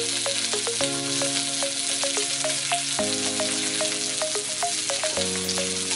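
Sliced bell peppers frying in hot oil in a steel pan, a steady sizzle with small crackles.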